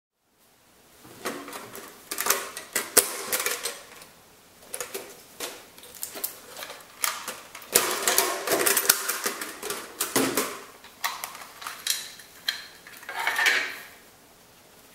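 Hands handling a metal tin lunchbox and a plastic cassette: irregular clicks, clatter and light rattling, starting about a second in and dying away near the end.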